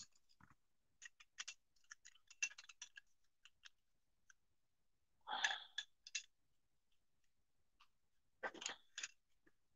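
Faint clicks and light knocks of metal parts being handled: the brass manifold head of a sprayer pump moved about over its plungers. Slightly louder handling noises come about five seconds in and again near the end.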